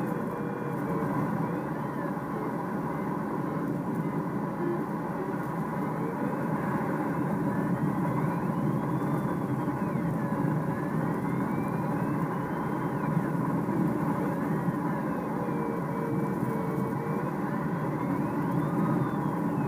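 Steady rush of air in a Duo Discus glider's cockpit under aerotow, with the tow plane's engine droning ahead. A faint variometer tone slides slowly up and down over it.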